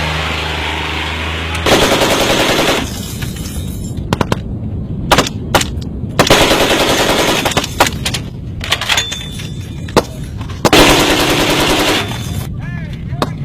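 A vehicle engine runs for the first second and a half, then machine-gun fire: three sustained bursts of about a second each, with scattered single shots between them.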